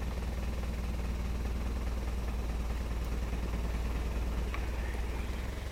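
Safari vehicle's engine running steadily, a constant low hum.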